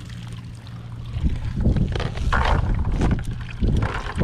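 Wind buffeting the microphone, turning louder and gustier about a second in, mixed with the rustle and drip of a wet cast net being hauled up and gathered by hand.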